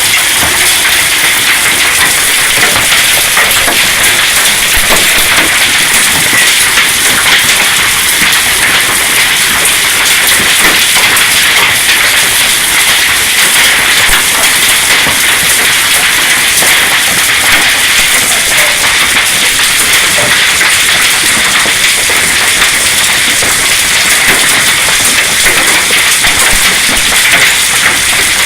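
Hail and rain pelting down hard: a loud, dense, unbroken clatter of countless small impacts.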